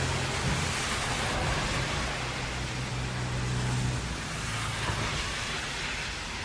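Traffic on a wet road in heavy rain: a steady hiss of rain and tyre spray over the low hum of car engines. The deep engine hum eases off about four seconds in.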